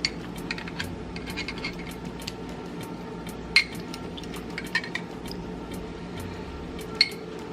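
Scattered light clinks and taps of a kitchen utensil against a jar and dishes while banana peppers are picked out, a few sharper clicks about halfway and near the end, over a steady low hum.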